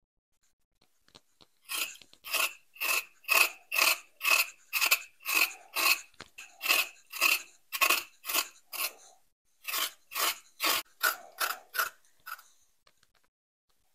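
Repeated hand-driven rasping strokes, about two to three a second, some two dozen in all, with a brief pause about nine seconds in.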